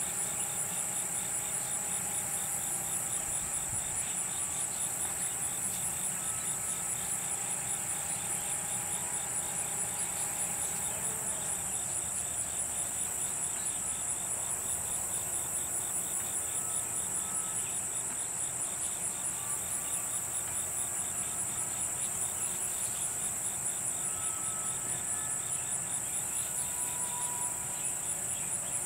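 Steady chorus of insects, crickets or katydids, making a high, rapidly pulsing trill without a break. A few faint short whistles sound now and then beneath it.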